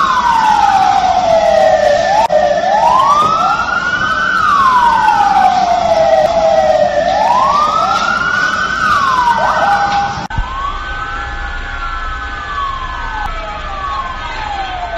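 Emergency vehicle sirens wailing, more than one at once, each rising and falling about every two seconds. About ten seconds in the sound drops suddenly to a quieter wailing siren over a low engine rumble.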